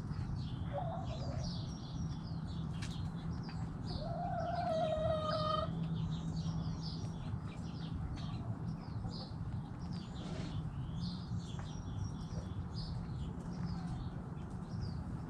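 Backyard chickens clucking, with many short high chirps throughout. About four seconds in, one chicken gives a single drawn-out call of under two seconds. A steady low hum runs underneath.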